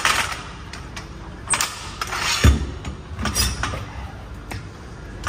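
Irregular knocks, clinks and rustles of things being handled, with a heavy low thump about two and a half seconds in.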